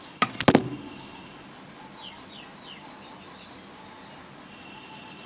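Three or four sharp clicks near the start as a colour pencil is handled, then a steady background of insects chirring in a high, evenly pulsing note, with a few faint chirps about two seconds in.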